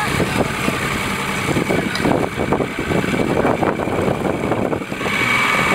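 Tow boat's engine running steadily, mixed with irregular rumbling from water and wind.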